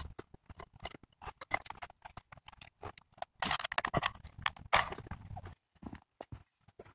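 Irregular clicks and knocks of an aluminium coolant pipe and housing being handled and fitted into place against an engine, with a couple of short scraping, rattling stretches about halfway through.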